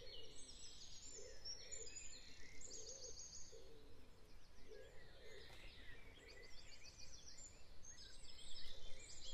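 Faint dawn-chorus birdsong recording: many birds chirping and trilling high up, with a lower call repeated about once a second.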